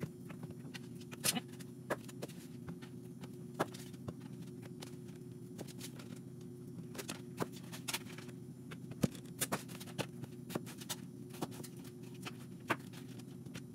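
Knife slicing potatoes into wedges on a cutting board: irregular sharp taps of the blade striking the board, over a steady low hum.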